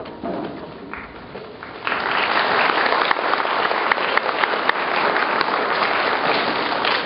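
Audience clapping, which breaks out loudly about two seconds in and carries on steadily as a dense patter of claps.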